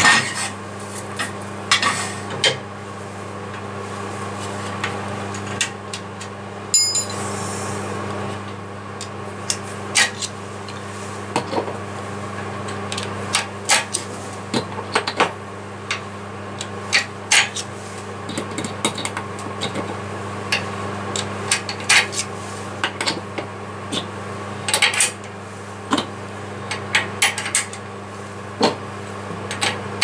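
Sharp metallic clinks and taps, some in quick clusters, from a woodturning lathe's four-jaw chuck being handled as the workpiece is taken off and the jaws are reset by hand, over a steady low hum.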